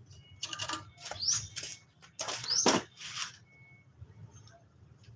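Cloth being shaken out and flapped while laundry is hung on a drying rack: several quick swishes, the loudest about two and a half seconds in, two of them sweeping upward.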